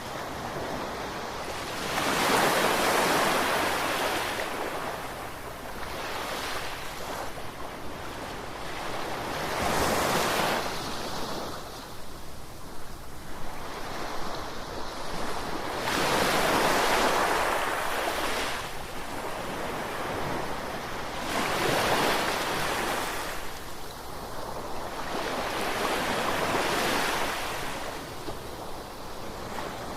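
Ocean waves breaking and washing on a shore, each surge rising and falling away about every five or six seconds.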